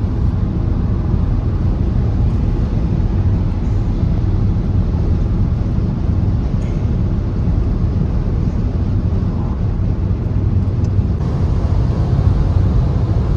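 Car driving along the road: a steady, low rumble of tyres and engine that holds unchanged.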